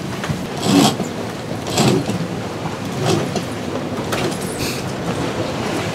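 Sailboat under way in a rough sea: steady rushing of wind and water, with several louder swishes a second or so apart.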